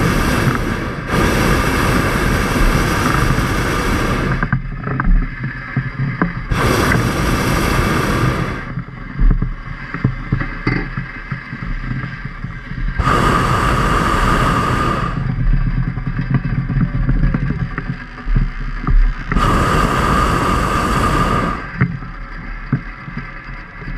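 Motocross bikes running on a dirt track, engines droning at varying loudness. The sound changes abruptly every few seconds, now bright and close, now duller and more distant.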